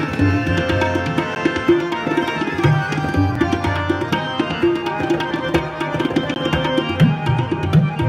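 Harmoniums playing the shabad melody in sustained reedy notes over a tabla playing a fast, steady rhythm, in Sikh kirtan.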